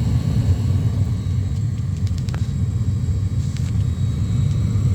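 Gas furnace running with its burners lit: a steady low rumble, with a few faint clicks about two seconds in.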